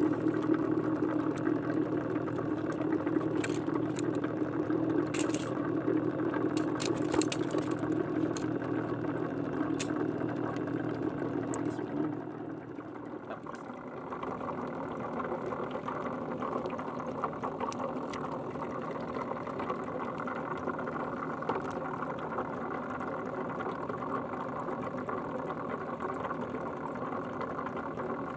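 A small engine running steadily, its drone dropping and changing tone about twelve seconds in.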